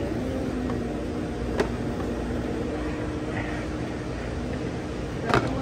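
Steady hum and air noise of cafeteria ventilation and refrigeration machinery, with a faint steady tone. A single sharp click sounds about a second and a half in, and a couple of sharp knocks near the end.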